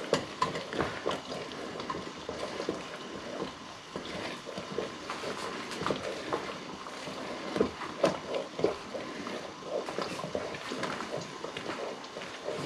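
A wooden spoon stirring a thick mash of fish roe in a stainless steel pot, giving irregular soft scrapes and knocks against the pot, over a steady low hiss of the simmering water bath beneath.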